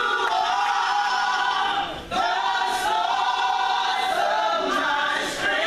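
Gospel vocal group singing in harmony, holding long chords, with a brief break about two seconds in.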